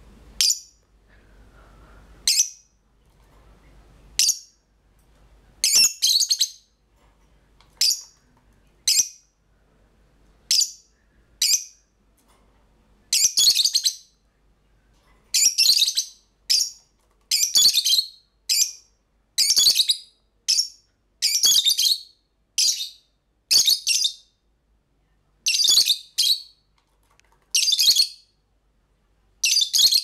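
Lovebirds chirping: sharp, shrill, high-pitched calls. They come singly about every second or two at first, then from about halfway in as longer chattering strings, one after another.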